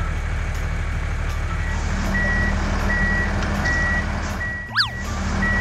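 Dubbed tractor engine rumble under a reversing alarm that beeps about once every three-quarters of a second, starting about a second and a half in. A quick rising-and-falling cartoon swoop cuts in near the end.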